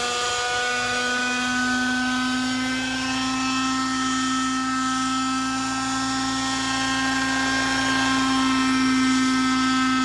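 Thunder Tiger Raptor 60 RC helicopter's glow-fuel engine and rotors running at a steady hover pitch, a little louder and higher near the end. The engine is bogging down, which the pilot means to cure by leaning the mixture.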